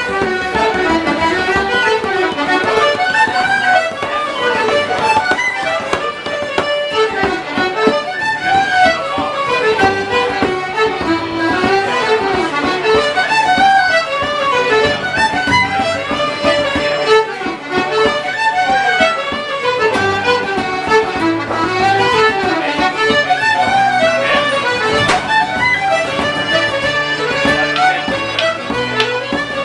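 Irish traditional session music: fiddle, accordion, tin whistle and acoustic guitar playing a tune together.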